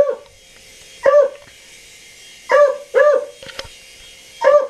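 Dog barking at a flying remote-control helicopter, about five short barks spaced unevenly.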